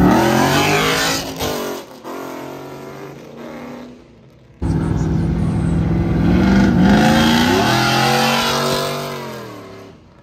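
Car engines accelerating hard past one after another, the engine note climbing through the revs and falling away as each car goes by. The first fades out within four seconds. After a sudden break a second car comes up loud and fades away near the end.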